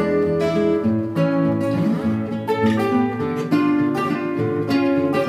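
Acoustic guitar music: a run of plucked notes and chords, played continuously.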